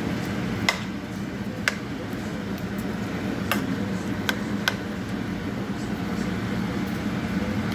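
Pot of brown stew chicken cooking down on the stove: a steady simmering hiss and hum, with about five sharp ticks or pops in the first few seconds.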